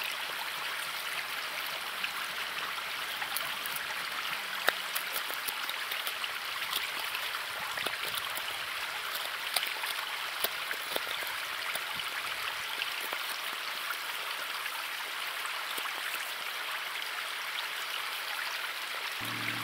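Steady rushing of a mountain river flowing over rocks, with scattered short ticks over it.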